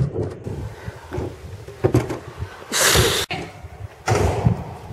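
Stunt scooter on a concrete skatepark: wheels rolling, with irregular knocks and clacks of the deck and wheels hitting the ground. There are two loud bursts of rushing noise, the longer one just before the middle and a shorter one near the end.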